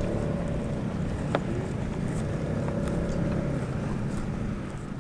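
A boat engine runs steadily with an even hum, and a few sharp clicks sound over it, the clearest about a second in. The hum fades out near the end.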